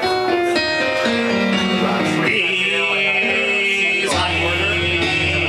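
Live music with an electronic keyboard playing held chords that change about every two seconds.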